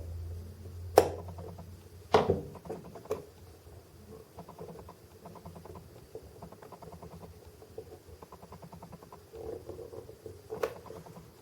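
Small sharp clicks and taps from handling a 1/50 scale diecast crane model while a tiny pin is worked into it: a loud click about a second in, a cluster of clicks around two seconds, and another near the end. Between them comes a faint, fast patter of fiddly handling.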